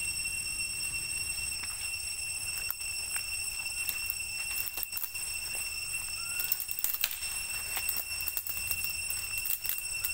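A steady, high-pitched insect drone from the forest, with scattered sharp crackles and rustles of dry leaves and twigs as macaques move through the litter and branches.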